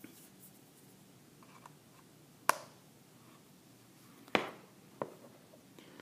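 Sharp plastic clicks and knocks as a Flir One thermal camera is handled and plugged onto a phone: two loud clicks about two seconds apart, then a softer one, over a low room hiss.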